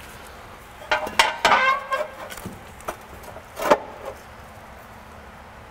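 Metal parts clinking and knocking as a flywheel is set onto the crankshaft and its bolts are started by hand, with a brief metallic ring about a second in and one sharp clank a little past halfway.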